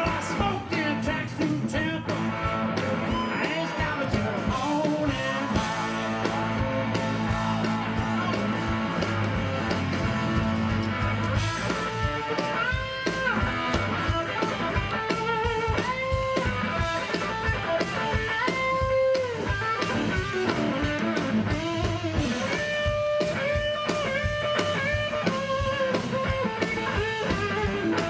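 Live blues band playing: an electric guitar solo with bent, sliding and held notes over bass guitar and drums.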